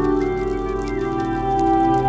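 Ambient background music of slow, held tones layered in chords that shift gradually.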